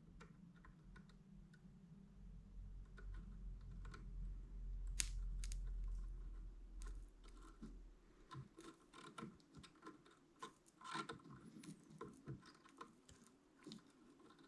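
Light, irregular clicking and tapping of small hard objects being handled, with a low rumble through the first half that stops about eight seconds in.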